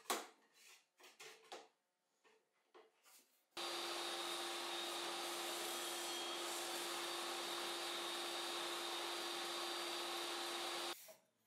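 A few clicks and knocks of parts being handled on the sled's aluminium fence, then a bench table saw running steadily with a steady hum over a broad whir. The saw starts about three and a half seconds in and cuts off abruptly near the end.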